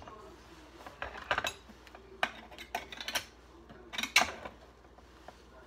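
Irregular metal clicks and clatters of a utensil working at the top of a tin can of sweet corn. Short sharp sounds come in small clusters, the loudest a pair about four seconds in.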